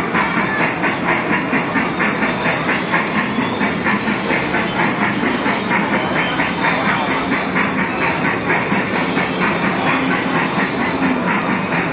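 Small Thomas the Tank Engine ride-on kiddie train running on its track, its wheels clacking in a steady rhythm of about four clacks a second that grows less distinct in the second half.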